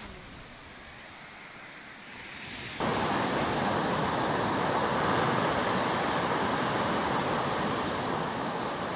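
Surf washing on a sandy beach as a steady rushing noise. It comes in suddenly, much louder, about three seconds in; before that there is only a quieter hiss with a faint thin high tone.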